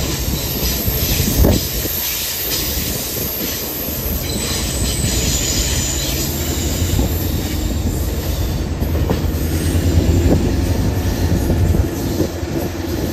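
Train cars rolling by on jointed rail: a steady low rumble with wheel clacks as the wheels cross the rail joints, the sharpest about a second and a half in.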